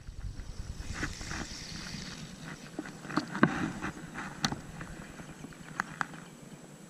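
Wind rumbling on the microphone, with scattered sharp clicks and knocks, the loudest about three and a half seconds in.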